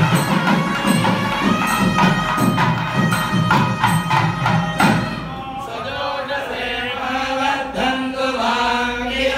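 Temple music of a reed pipe holding steady notes over quick, regular drum strokes; about five seconds in, the drumming stops and a group of voices takes over, chanting mantras in unison on long held notes.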